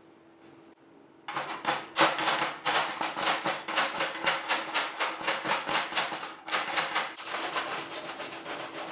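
Chipping hammer knocking slag off a fresh flux-core weld on steel angle iron, about four quick strikes a second, then a steel wire brush scrubbing the weld in fast strokes from about seven seconds in.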